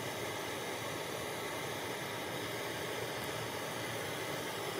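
Small handheld gas torch burning with a steady hiss, its blue flame heating a wire.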